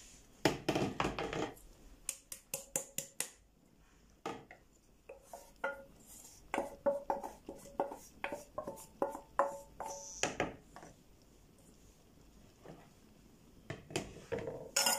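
A utensil tapping and scraping inside a stainless steel bowl as bitter leaf is knocked out into the pot: a quick run of taps, then scattered taps with the bowl ringing lightly. Near the end a glass pot lid clatters as it is set back on the pot.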